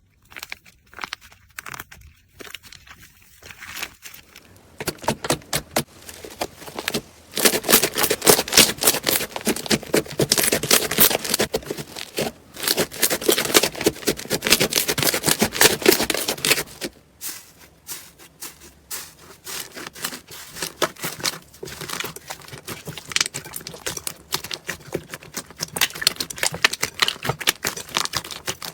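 Slime being squeezed and kneaded by hand, giving rapid crackling pops and clicks, loudest through the middle.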